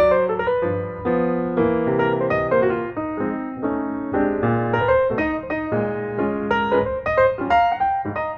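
Background piano music: notes and chords struck in steady succession over a low bass line.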